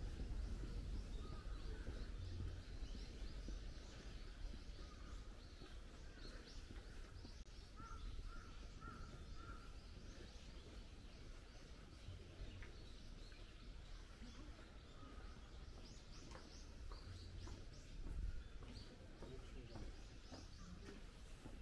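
Birds calling, with many short chirps scattered throughout and a run of four short, evenly spaced calls about eight seconds in, over a faint low rumble.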